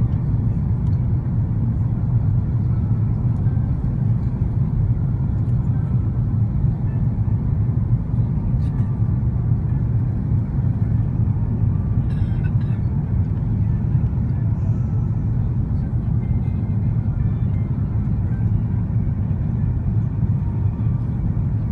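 Steady, deep rumble of engine and airflow noise inside the cabin of an Airbus A330-300 descending on its landing approach, heard from a window seat over the wing.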